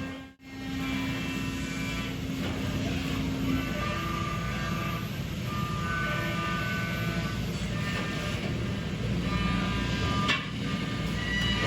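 Brother Speedio CNC machining center running and cutting: steady machine noise with whining tones that change pitch several times, and a sharp click about ten seconds in.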